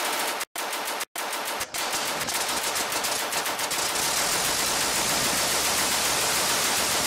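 Twin Vickers .303 machine guns firing in an animation soundtrack: a rapid rattle of shots, first in short bursts with brief silent gaps, then continuous fire from about a second and a half in.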